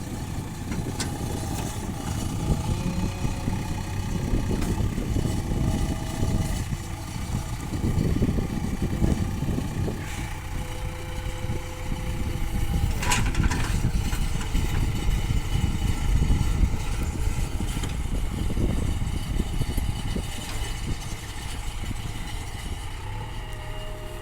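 JCB 3DX backhoe loader's diesel engine running as the machine drives, swelling and easing in loudness, with one sharp click about thirteen seconds in.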